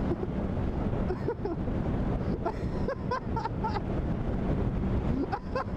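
Wind rushing over a motorcyclist's microphone, with a steady low engine hum beneath.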